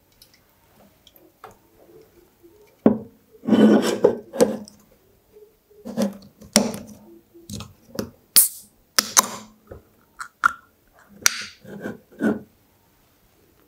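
Aluminium Sun Crush grape sparkling drink can being handled and its ring-pull tab worked open: a string of short clicks, taps and brief scrapes, busiest from about three seconds in until near the end.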